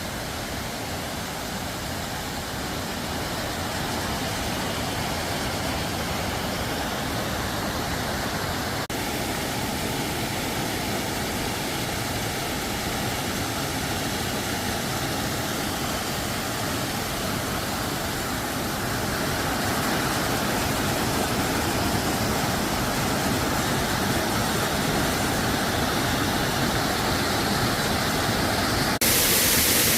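Steady rush of flowing and falling water from a mountain stream, growing gradually louder and jumping up abruptly near the end.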